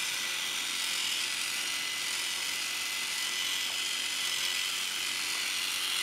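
Thomas and Friends Kids Spinbrush, a battery-powered spinning toothbrush, running steadily in a child's mouth while his teeth are brushed: a continuous high-pitched whir.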